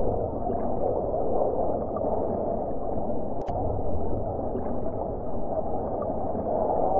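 Steady, muffled rumble of jet aircraft engines overhead, with no distinct pass or change in pitch.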